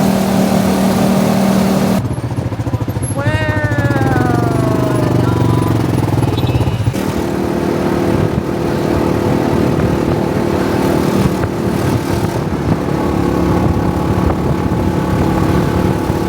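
Small vehicle's engine running while being driven, its pitch and note shifting a couple of times, with a falling tone heard briefly about three seconds in.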